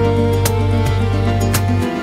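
Instrumental background music: held chords with a light, regular tick, changing chord at the start and again near the end.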